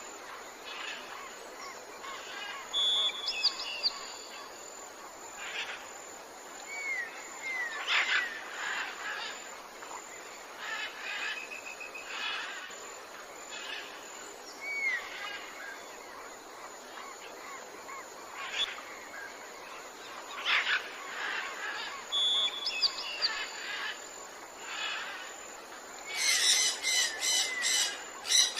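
Several birds chirping and calling in short phrases, some as brief downward-sliding whistles, over a steady background hiss, with a quick run of calls near the end.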